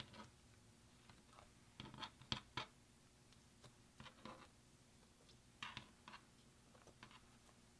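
Clear slime loaded with crumbled pressed eyeshadow and glitter being folded and squeezed by hand, giving faint sticky clicks and crackles in a few short clusters, the loudest a little over two seconds in.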